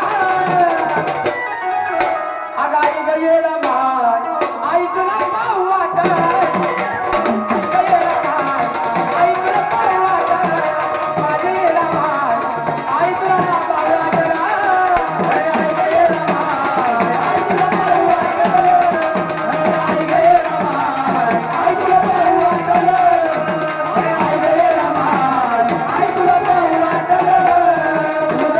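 Sambal, the paired drums of Maharashtrian gondhal music, playing steadily under a wavering melodic line.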